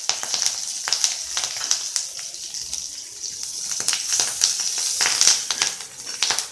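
Cumin, mustard seeds and curry leaves sizzling and spluttering in hot oil in a kadhai, a steady hiss with many sharp crackles. This is the tempering (tadka) stage. From about four seconds in, a metal spatula stirs them around the pan.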